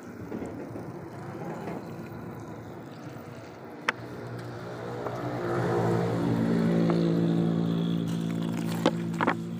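Water squirted in a thin stream from a bottle into the cells of a motorcycle battery, a soft trickle and hiss. About halfway through, a steady engine hum comes in, grows louder and keeps going.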